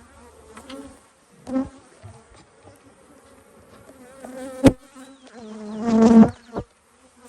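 Agitated honeybees buzzing around an open Langstroth hive, with single bees flying close past the microphone so the buzz swells and fades. There is a sharp click about four and a half seconds in, and the loudest buzz, from a bee right at the microphone, comes about six seconds in.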